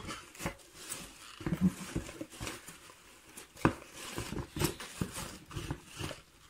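Packing peanuts rustling in a cardboard box as a hand digs through them and handles plastic eyepiece cases, with irregular light clicks and knocks and one sharper knock a little over halfway through.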